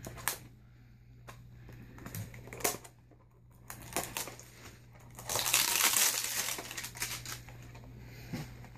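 The wrapping on a small cardboard figure box crinkling and tearing as it is cut and picked open by hand, with scattered small clicks and taps. The loudest crinkling comes in a burst about five seconds in and lasts a couple of seconds.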